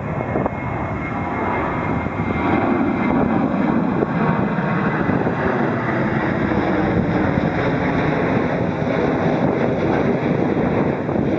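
CFM56-7B turbofan engines of a Boeing 737 running, giving a steady jet rush with a faint high whine.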